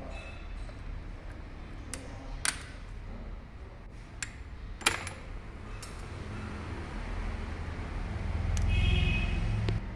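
Small steel parts of a Bosch inline diesel injection pump clinking as they are handled and set down during disassembly: a handful of sharp metal clinks. A low rumble swells near the end and cuts off suddenly.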